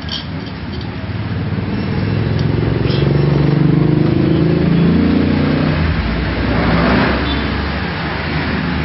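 A motor vehicle engine passing by: it grows louder and rises in pitch for a few seconds, then drops away and fades.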